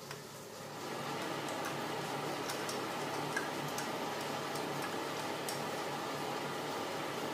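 Steady hiss from a pan of chili paste cooking over a lit gas burner, starting a little under a second in, with a few light clicks as the paste is scraped out of a chopper bowl into the pan.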